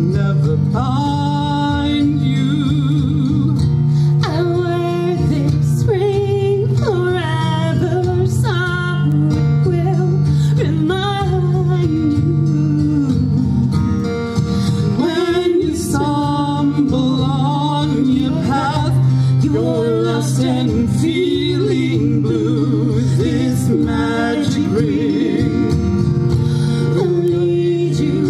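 Live song: singing accompanied by acoustic guitar and a band.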